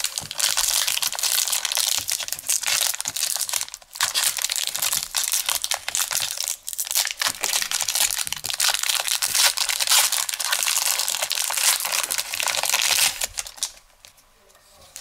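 Trading card pack wrapper crinkling and tearing as it is ripped open and handled. There is a short break about four seconds in, and it stops about a second before the end.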